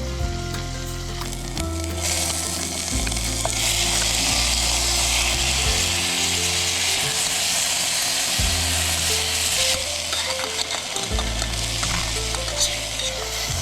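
Garlic, onion and tomato sizzling in a pan on a camping gas stove as they are sautéed. The sizzle grows louder about two seconds in and eases off near ten seconds, with a few light taps near the end.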